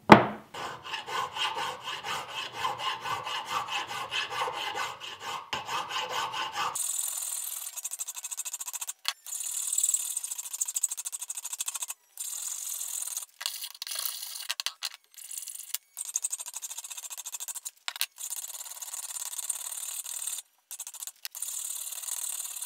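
A flat hand file rasping in repeated strokes across an aluminium part held in a vise, smoothing it. About seven seconds in the sound turns thin and high, losing its low end, with a few short gaps.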